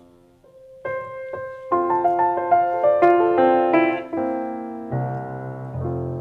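Piano playing an instrumental interlude in a carol: a few single notes, then a busier passage of notes, with deep low chords joining about five seconds in and fading toward the end.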